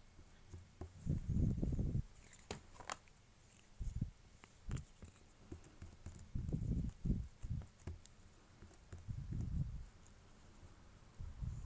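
Handling noise from modelling clay being worked by hand on a work surface: dull low thumps and rubs, several of them up to about a second long, with a few sharp clicks of a tool or board in between.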